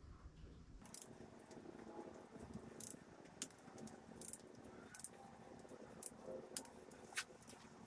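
Torque wrench ratcheting on the connecting-rod cap bolts of an LS 5.3 V8 block during a first tightening pass at 25 ft-lb: irregular sharp metallic clicks, several seconds apart.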